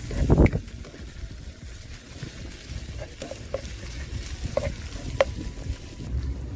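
Chopped onion, garlic and green seasoning sizzling in oil in a nonstick pan while a spoon stirs them and scrapes the pan bottom, with a few short scrapes. A louder thump comes about half a second in.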